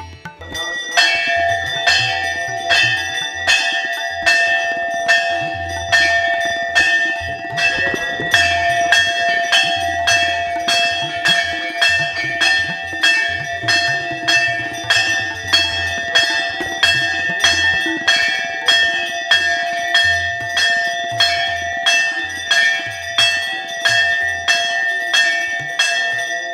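Temple bell rung steadily during the aarti, about one and a half strikes a second with the ringing carrying on between them, starting about a second in. A low rumble comes and goes underneath.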